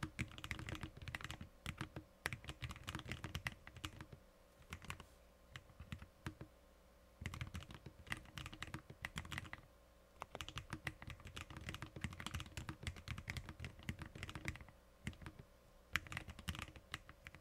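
Fast typing on a Lofree Flow low-profile mechanical keyboard with tactile Kailh switches: rapid runs of key clicks broken by a few short pauses.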